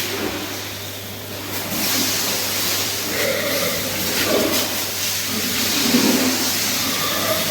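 Steady hiss of a water or disinfectant spray coming in about two seconds in, with pigs grunting and calling from about three seconds on.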